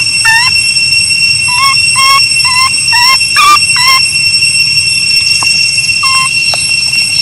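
Baby macaque crying in a rapid series of short, high-pitched squeals of distress, about two a second, thinning to a few scattered cries after about four seconds. A steady high whine runs underneath.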